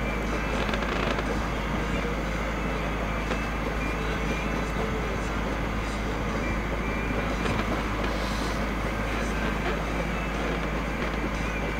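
Steady motor rumble with a constant low hum and hiss, typical of the engine of the boat the view is taken from running at a steady speed.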